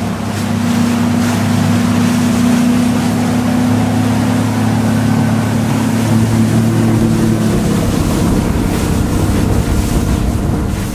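Bass boat's outboard motor running at speed, a steady drone, with wind rushing over the microphone.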